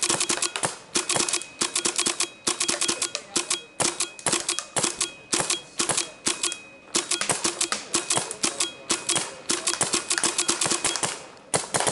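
Empire Resurrection paintball marker firing rapid strings of shots, about six a second, with short pauses between strings.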